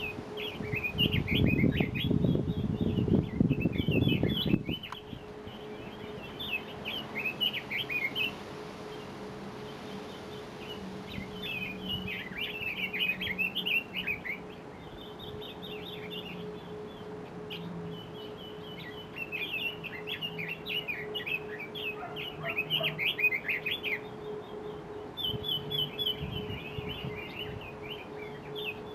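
Red-billed leiothrix calling: repeated one-to-two-second phrases of fast, high chirping notes. A low rumble runs under the first few seconds, and a faint steady hum runs throughout.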